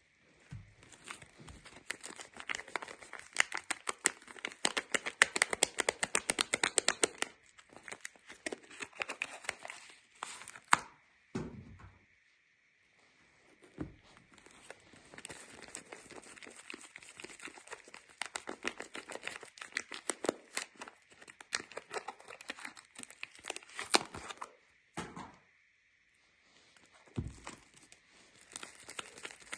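Soap wrapping being unwrapped by hand: crinkling and tearing in runs of crackly rustling, broken by a few short pauses.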